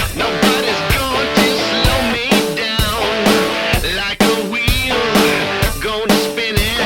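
Music with a drum kit and guitar playing a steady beat, about two beats a second.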